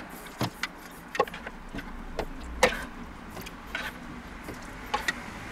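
A ladle knocking and clinking against a frying pan and a blender jug as cooked pumpkin cubes are spooned from one into the other: a handful of irregular knocks, the loudest about two and a half seconds in.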